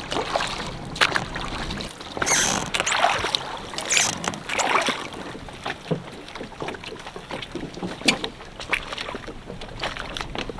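Small inflatable dinghy being rowed and brought alongside a wooden dock: splashing swishes of the oars, then scattered knocks and clicks of the boat and a mooring line being handled.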